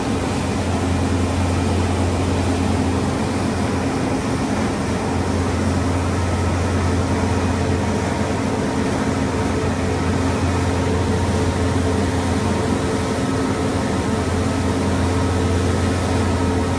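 Steady machine hum with several held tones from a running DMS 5-axis CNC router while its spindle head slowly tilts and swivels.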